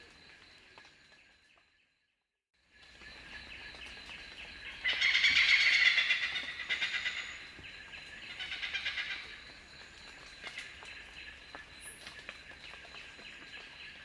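Oriental pied hornbill giving its loud, sharp cackling "kak-kak-kak" call. A brief drop to silence comes first. About five seconds in there is a rapid run of notes lasting about a second and a half, then a shorter run about three seconds later, over a steady high background drone.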